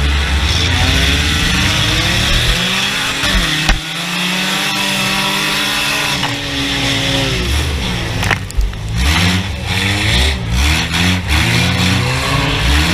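Junk race car engines revving and accelerating, several at once, their pitches rising and falling over each other, with a couple of sharp knocks.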